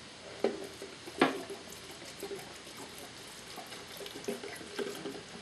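Light handling sounds of small objects: two sharp clicks in the first second and a half, then a few faint ticks over a quiet hiss.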